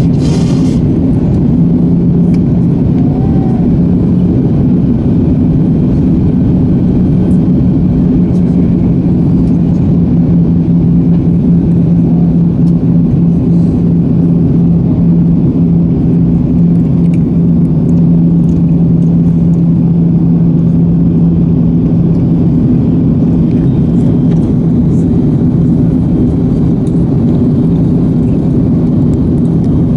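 Steady airliner cabin noise on the approach: the jet engines' drone and airflow rumble with a steady low hum, and a brief hiss in the first second.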